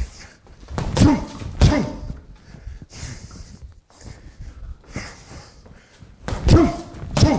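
Gloved punches landing on a TKO hanging heavy bag: two heavy thuds about a second in, and two more near the end, each with a short booming ring in the room. Quieter scuffs and breaths are heard between the combos.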